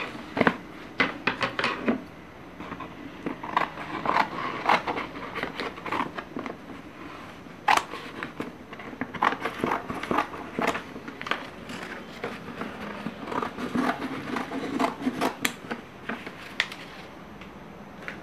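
Scissors cutting through black chart paper: irregular snips with the crackle and rustle of the stiff paper as the cone's excess is trimmed.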